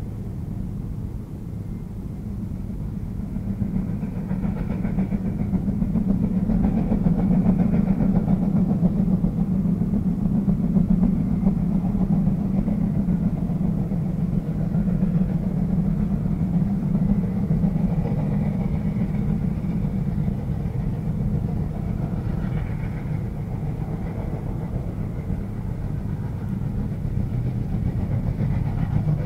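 Steam train running, a steady heavy rumble that swells a few seconds in and stays loud.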